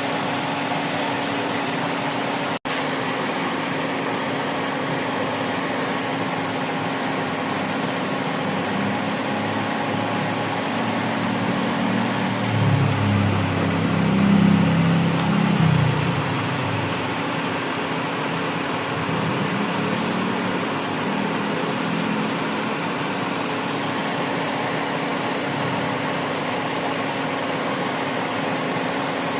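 Suzuki Celerio's three-cylinder engine running at idle while it is tested for a misfire, which is still present. It rises to a louder low surge for a few seconds about halfway through, then settles back.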